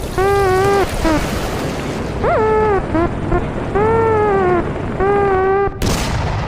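A series of about seven drawn-out pitched wailing cries, each held for half a second to a second, over a steady noisy hiss. A sudden loud burst of noise comes near the end.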